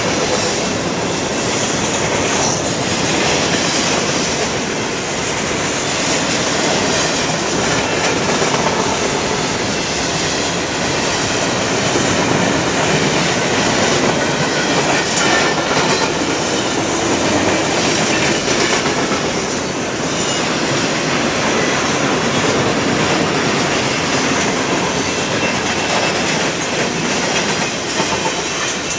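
Freight train cars rolling past, a steady loud rumble of steel wheels on the rails.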